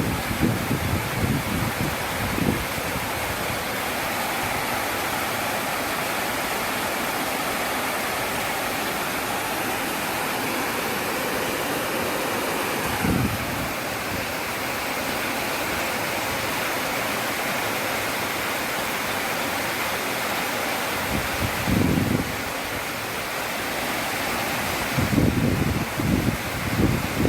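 A steady outdoor rushing noise, with gusts of wind buffeting the microphone a few times, about a second in, midway, and near the end.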